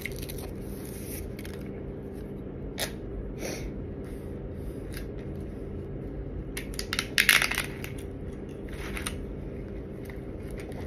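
Paper straw wrapper crinkling and tearing, then a louder burst of crackling about seven seconds in as the straw is pushed through the plastic lid of a foam drink cup. A steady low hum runs underneath.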